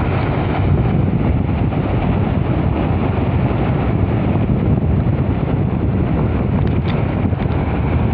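Wind buffeting the microphone: a loud, steady low noise with no pitch or rhythm.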